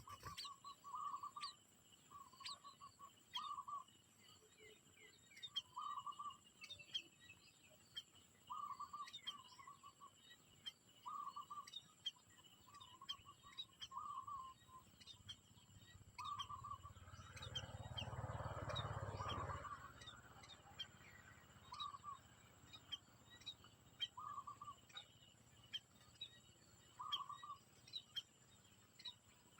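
Birds calling faintly: a short, low call repeats every second or two over many quick high chirps. About two-thirds of the way through, a rushing noise swells and fades.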